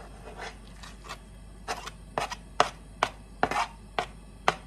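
A wooden spoon scraping diced raw chicken off a plastic chopping board into a non-stick wok: a soft scrape, then a quick run of about ten sharp knocks in the second half.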